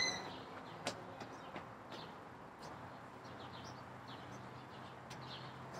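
Birds chirping, short high chirps repeated at uneven intervals, with a few light clicks in the first seconds.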